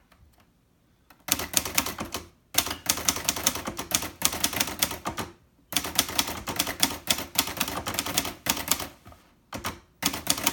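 1969 Hermes Rocket portable manual typewriter typing a run of capital letters: fast, sharp type-bar strikes in quick runs broken by brief pauses, starting about a second in.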